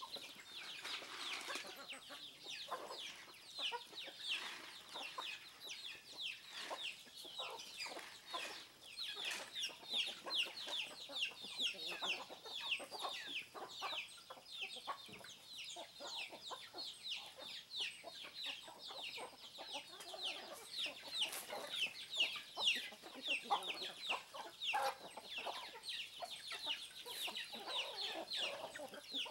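A flock of free-range domestic chickens clucking while feeding, over a steady run of many short, high, falling chirps.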